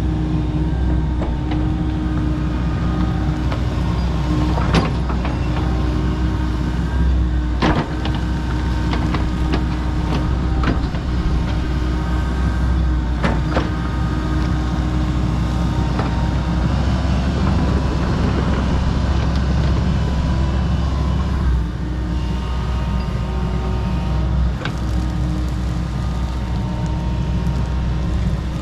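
Kobelco SK85 MSR 8-ton excavator's engine running steadily under working load. Several sharp knocks and cracks come as the machine works through undergrowth, the loudest about 5, 8 and 13 seconds in.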